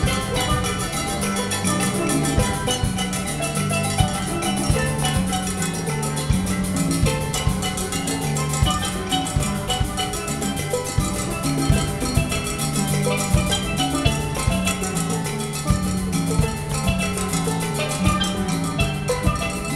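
Student steel band playing live: steel pans carry the tune over a drum kit, congas and timbales, with a bass line moving underneath.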